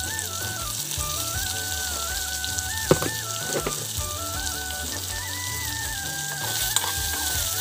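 Sliced tomatoes, onion, ginger, garlic and chilli sizzling steadily in hot oil in a non-stick wok, with one sharp knock about three seconds in.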